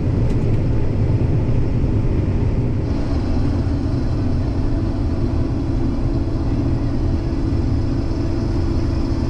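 Case IH 2388 combine running steadily under load while harvesting soybeans, a continuous low machine rumble of engine and threshing that turns slightly brighter about three seconds in.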